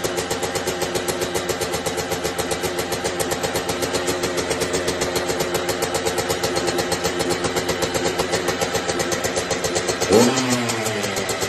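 Kawasaki KX65 dirt bike's 65cc two-stroke single idling steadily, with one quick blip of the throttle about ten seconds in, the pitch rising and falling back.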